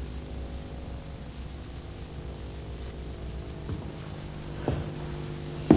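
A steady low hum made of several level tones, with a few soft knocks near the end.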